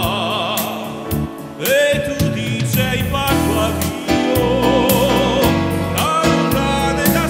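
A small live band playing a song: a man singing into a microphone, holding long notes with a wide vibrato, backed by an electric keyboard and an electric guitar.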